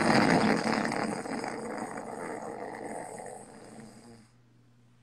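A sleeping man snoring over a video-call connection: one long snore that starts suddenly, is loudest at first and fades out over about four seconds.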